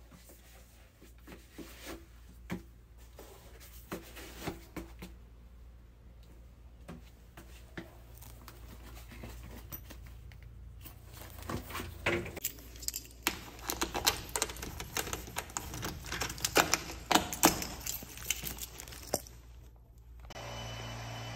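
Plastic bag rustling and crinkling as it is carried and handled, with scattered clicks and knocks. It gets busier and louder over the second half and stops shortly before the end.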